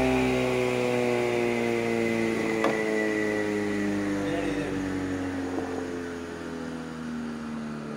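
Wood planer (surface planer with a fence) winding down: its motor and cutterhead hum with several tones that slowly drop in pitch and fade as the machine coasts toward a stop. There is a single short knock about two and a half seconds in.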